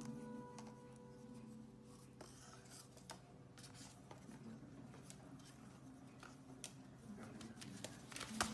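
Faint scratching and light knocks of a cardboard toilet-paper tube being pushed and dragged across a stone countertop by a black-headed caique, with one sharp click near the end. A steady low hum runs underneath.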